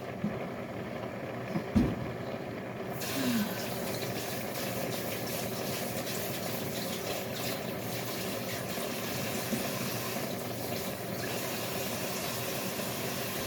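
Kitchen tap turned on about three seconds in, water running steadily into the sink while hands are washed. A single short knock comes just before.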